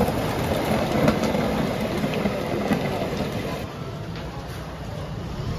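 Diesel engine of heavy machinery running steadily, with a few short metal clanks about a second in and again near three seconds.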